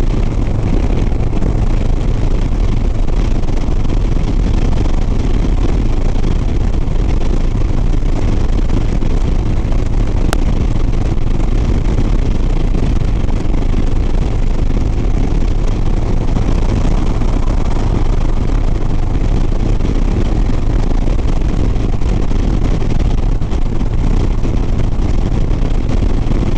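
Harley-Davidson Sport Glide's V-twin engine running steadily at highway cruising speed, with wind rushing over the rider's microphone.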